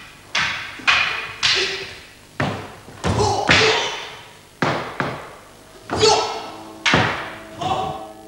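Wooden practice sword and wooden halberd (naginata) striking each other in a paired kata: about a dozen sharp, irregular clacks, each ringing briefly in the hall.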